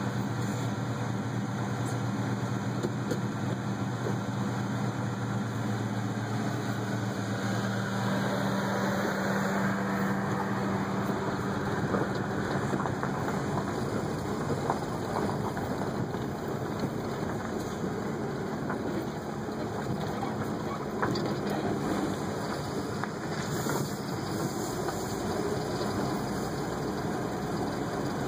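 1978 Ford Fairmont wagon driving, heard from inside the cabin: a steady low engine hum for the first several seconds, then a rougher, fuller running noise with tyre and gravel rumble as it moves along a gravel road.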